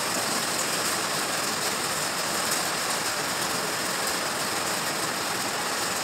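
Heavy rain mixed with hail falling steadily: a dense, even hiss with no let-up.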